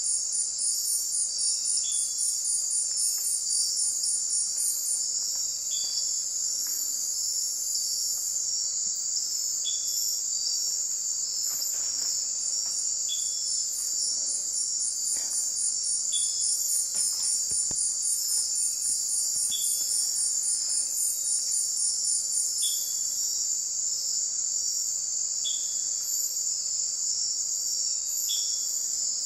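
Night insect chorus of crickets: a dense, steady high-pitched buzz, with a faster pulsing trill above it that breaks off and starts again a few times, and a short high chirp repeating about every three seconds.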